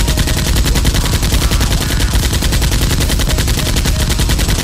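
Sustained burst of automatic gunfire, a fast, even string of heavy shots many times a second with no break.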